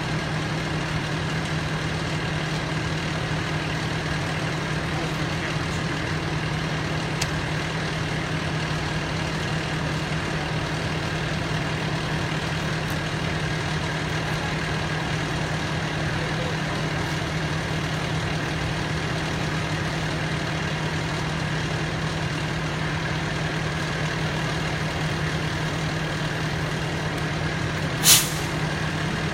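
Parked fire engine's diesel engine idling steadily. A short, sharp hiss of air comes near the end.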